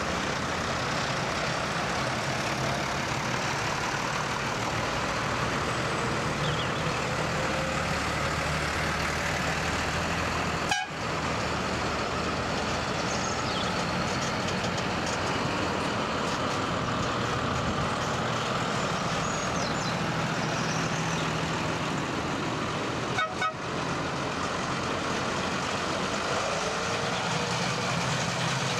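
Diesel farm tractors driving past one after another, their engines running under a steady wash of noise. The sound cuts out briefly twice, about a third of the way through and again at about three-quarters.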